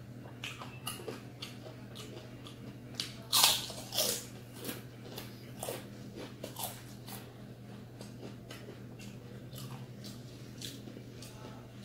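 Close-up crunching and chewing of crispy fried chicken skin, a run of sharp crisp bites with the loudest crunches about three and a half and four seconds in.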